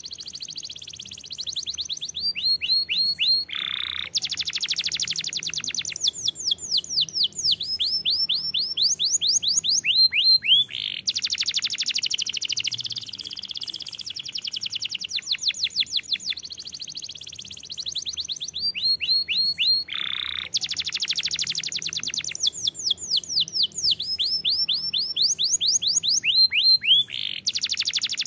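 Domestic canary singing without a break: fast trills of repeated notes, runs of quick downward-sweeping whistles and dense rolled phrases, one straight after another. The same sequence of phrases comes round again about two-thirds of the way through.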